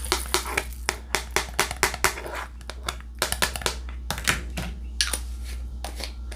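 Quick, irregular light clicks, several a second: a diamond-painting drill pen tapping resin drills down onto the canvas.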